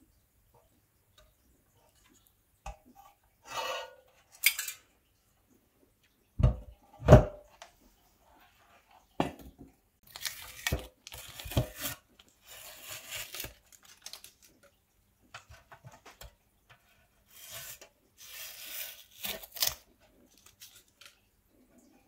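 Sheet-metal parts of a handmade model car body being handled on a workbench: scattered clinks and knocks, the loudest a pair of knocks about a third of the way in. Later come several stretches of scraping and rustling.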